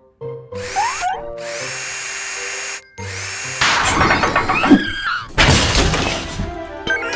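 Cartoon background music with workshop sound effects: a quick rising glide about a second in, a long hiss, then power-tool sound effects and a loud noisy burst in the second half.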